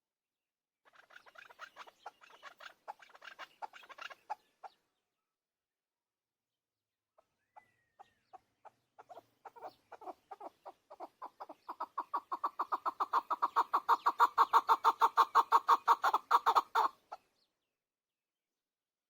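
Chukar partridge calling: a short run of quiet rapid clucks, a pause of a couple of seconds, then a long series of clucks that grows steadily louder and faster into a loud chatter before stopping abruptly.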